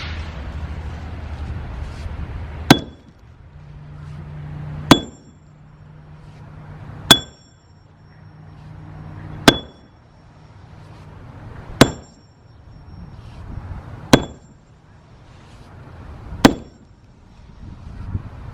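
Sledgehammer (maul) striking a concrete slab about 6 to 7 inches thick, seven heavy blows about every two and a half seconds, each with a short metallic ring.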